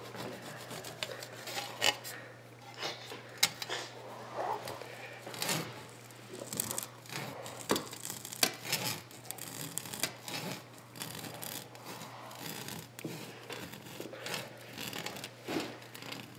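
Hand saw cutting through a solid rubber lacrosse ball: uneven back-and-forth rasping strokes with sharp clicks scattered through them.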